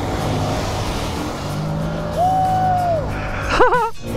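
ATV engine running hard as the quad blasts across a pond at high speed. A long held shout about two seconds in and a short wavering yell near the end.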